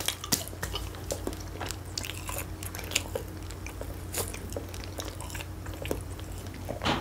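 A person chewing and biting food close to the microphone: irregular small mouth clicks and smacks, with no talking.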